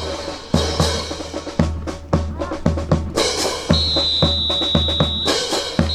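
Percussion beat of bass drum and snare, with sharp clacks of rifles struck and handled in unison in a rifle drill; the 36 rifles play the rhythm together. About two-thirds of the way through, a steady high whistle-like tone is held for about a second and a half.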